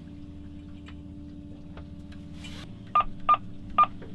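Three short electronic keypress beeps in quick succession near the end, from buttons pressed on a boat's VHF marine radio, over a low steady hum.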